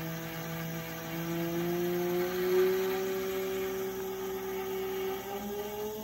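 Hoverboard hub motor, driven by a brushless motor controller, spinning a fan blade at high speed: a steady motor whine and blade whir whose pitch climbs slowly as the motor speeds up.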